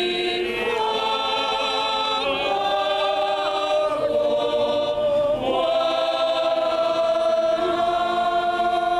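Mixed choir singing a slow sung response to the Gospel announcement, a few long chords in harmony, each held for a second or more. The singing stops at the end.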